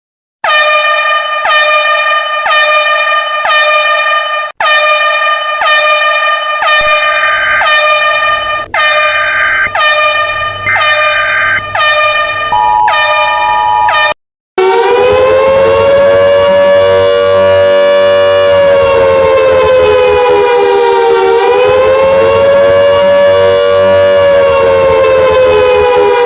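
Two emergency alert alarm tones in turn: first a loud pulsed tone with a rich, horn-like sound repeating about one and a half times a second, with a second higher tone joining near the end; it cuts off about halfway and a continuous siren tone follows, its pitch slowly dipping and rising again.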